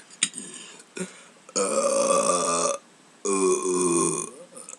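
A man's deliberate belches: two long, pitched burps in a row, each lasting about a second, with a brief gap between. They follow a couple of short clicks.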